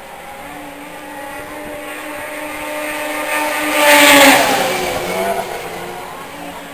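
Ice oval racing snowmobiles passing at full speed: their engines grow louder, are loudest about four seconds in as they go by closest, then drop in pitch and fade as they move away.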